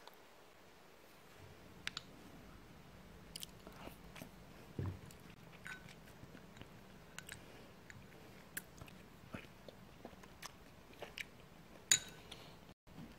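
Small wooden spoon stirring thick yogurt in a glass bowl: soft wet squishing with scattered light clicks of the spoon against the glass, the sharpest click near the end.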